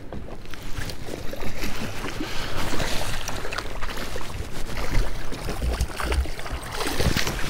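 Water splashing irregularly as a hooked bass thrashes at the surface beside the boat during the fight.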